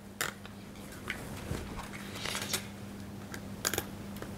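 Plastic cable ties being pulled tight through their locks by hand to tension the trunk: scattered small clicks and short zipping scrapes, with a sharper pair of clicks near the end.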